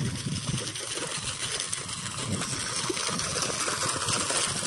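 Irrigation water gushing steadily through a channel into a rice paddy, a little louder near the end.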